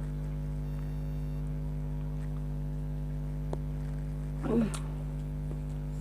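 Steady electrical mains hum, with a faint click about three and a half seconds in and a brief low vocal sound about a second later.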